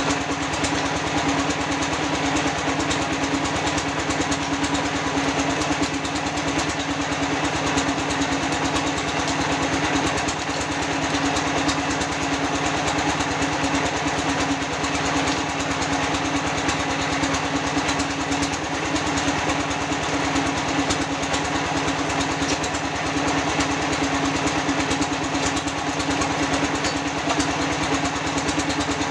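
Concrete block press machine's motor running steadily, a constant hum with a fast rattling vibration.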